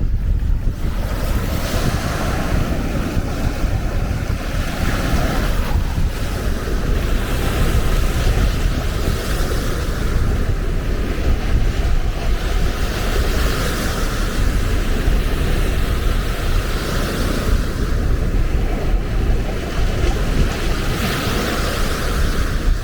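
Baltic Sea surf washing onto a sandy beach, the washes swelling and fading every few seconds, under constant wind buffeting on the microphone.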